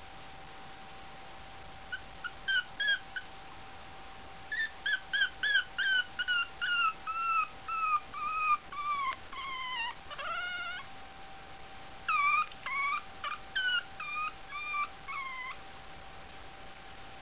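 A month-old puppy whimpering: strings of short, high-pitched whines. A long run from about four seconds in slides slowly down in pitch, then a pause, then another string of whines.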